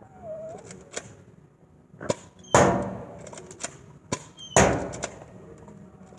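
Nerf blaster fired twice, about two seconds apart: two loud sharp shots, each with a smaller click shortly before it.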